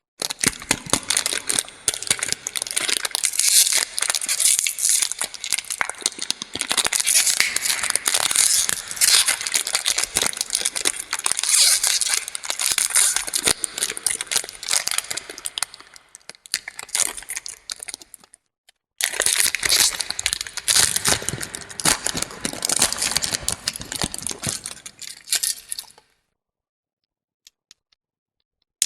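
Plastic lollipop wrappers crinkling and tearing as they are unwrapped close up, a dense crackly rustle full of sharp clicks. It breaks off briefly about two-thirds of the way through, resumes, then stops a few seconds before the end.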